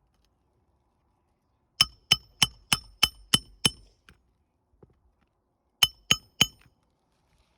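Hammer driving a roofing nail through an asphalt shingle: a quick run of seven ringing metal-on-metal strikes, about three a second, then after a short pause three more strikes to set the nail.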